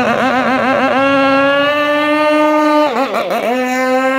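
Small RC boat engine running fast on test: a loud, high-pitched drone. Its pitch wavers rapidly for about the first second, then holds steady, dipping briefly and recovering about three seconds in.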